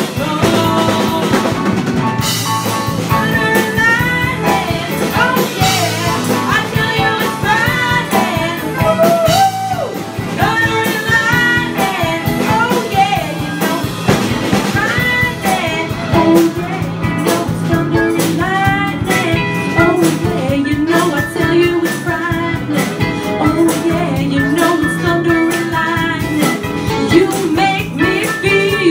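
Live pop-rock band: several women's voices singing over acoustic and electric guitars, keyboard and drum kit.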